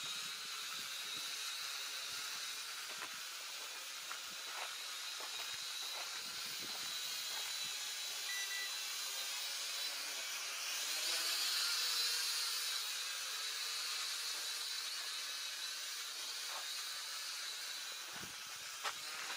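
Syma toy quadcopter's small electric motors and propellers whining overhead, a steady high hum that swells louder about halfway through, with the pitch wavering as the drone manoeuvres.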